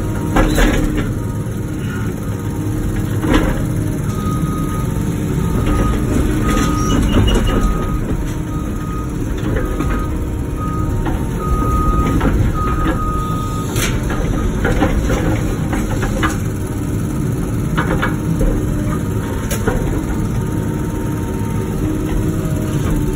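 Wacker Neuson ET145 excavator's diesel engine running steadily under working load, with scattered sharp knocks as rock is moved. A high whine cuts in and out repeatedly for several seconds near the middle.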